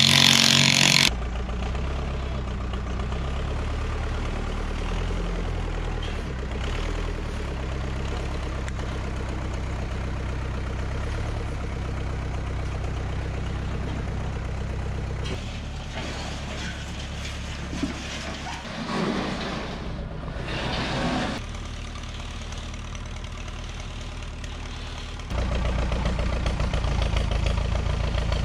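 Tractor engine running steadily, stepping up louder a few seconds before the end, with a loud burst of noise in the first second.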